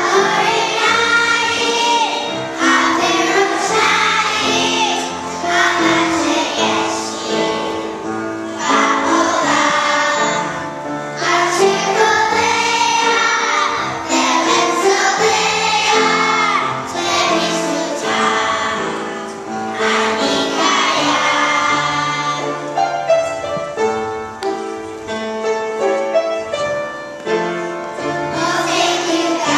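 A group of young children singing a song together as a choir.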